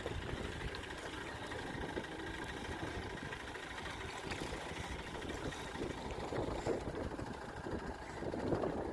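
An engine running steadily at a low, even speed, with some louder rough noise near the end.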